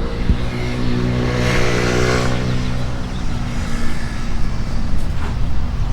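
A car driving past, its engine hum sliding slightly lower in pitch, loudest about two seconds in and then fading away.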